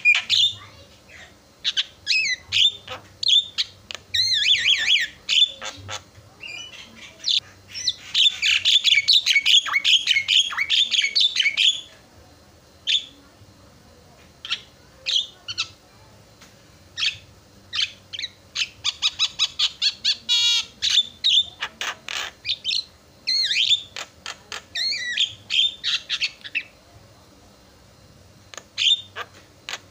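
Javan myna singing loudly: runs of short, sharp repeated notes and harsh chattering phrases, with a dense burst of rapid warbling about eight seconds in and shorter scattered calls with brief pauses after it.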